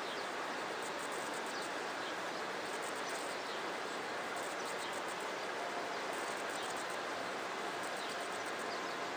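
Steady outdoor ambient noise, an even hiss with no single distinct source, with faint short high chirps scattered through it.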